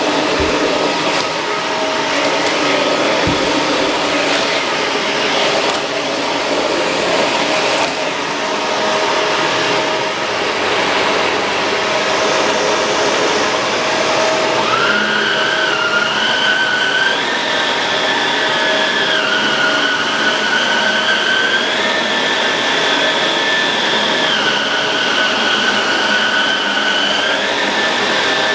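Shark Rotator Pro Lift-Away NV500 vacuum cleaner running steadily. About halfway through, a high whistle joins the motor noise and shifts up and down in small steps.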